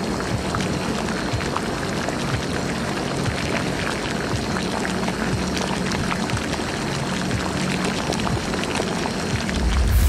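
Spooky sound-design ambience for a Halloween animation: a dense crackling noise full of small clicks over a low, steady hum that comes and goes. A low rumble swells near the end.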